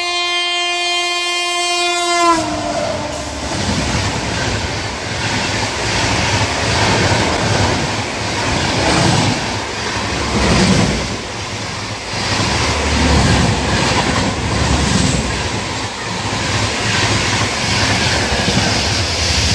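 A passing train's locomotive sounds one long horn blast that bends down in pitch as it cuts off about two seconds in. The train then runs past with a steady rumble and clatter of wheels on the rails.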